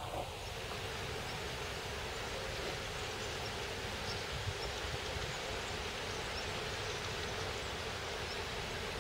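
Steady outdoor noise of wind and rustling grass, with the low, steady drone of a distant Lxd2 narrow-gauge diesel locomotive approaching slowly.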